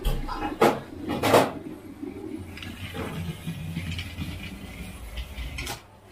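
Two sharp plastic clicks about a second in as a toy locomotive is handled, then a toy train running along a paper track with matchstick rails, a steady low rattling rumble that falls away near the end.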